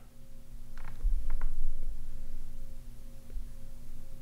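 Steady low electrical hum with a low rumble, and a few faint taps of an Apple Pencil tip on the iPad's glass screen about a second in.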